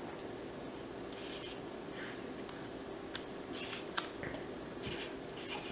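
Felt-tip Sharpie marker writing numbers on a paper pad: short, scratchy strokes in irregular bunches, with two sharp ticks of the tip on the paper about three and four seconds in.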